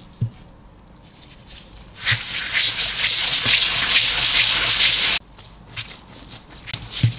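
A plastic-gloved hand rubbing quickly across a silicone pastry mat, a dense rustle for about three seconds that stops abruptly. A soft thud near the end as the dough ball is set down on the mat.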